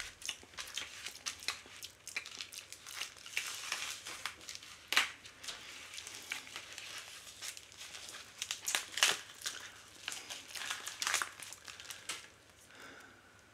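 Plastic mail package and zip-lock parts bag crinkling and rustling as they are handled and opened, with a few sharper crackles about 5, 9 and 11 seconds in; the crinkling stops about a second before the end.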